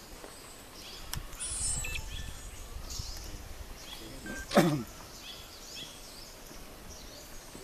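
Forest birds chirping faintly and sporadically, with one short, loud sound falling in pitch about four and a half seconds in.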